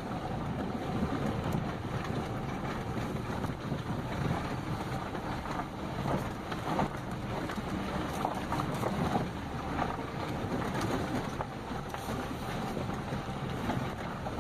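Jeep Grand Cherokee rolling slowly along a dirt road, heard from inside the cabin: a steady rumble of engine and tyres on dirt, with a few light knocks and rattles from bumps in the track.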